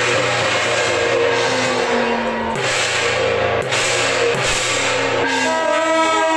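Loud music with drums and cymbals. From about five seconds in, several held horn-like tones sound over it.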